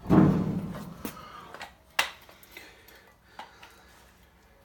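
Sheet-metal dryer parts and tools being handled: a loud metal clunk at the start that rings briefly, then a sharp click about two seconds in and a few fainter clicks and knocks.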